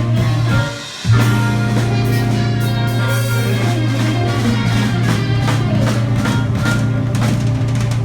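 Live blues band playing, with a drum kit and a steady low bass line under the other instruments; the music drops briefly about a second in, then comes back in full.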